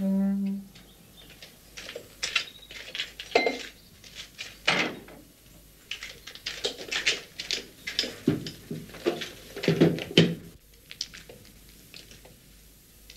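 A short low buzz at the start, then several seconds of irregular clattering: clicks and knocks of hard objects being handled, which stop about ten seconds in.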